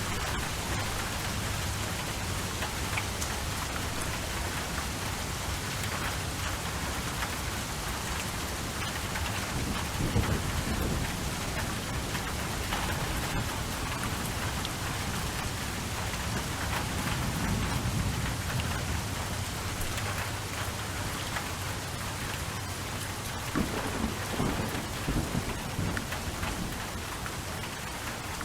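Steady rain with low rolls of thunder: one about ten seconds in, another around eighteen seconds, and a run of rumbles near the end.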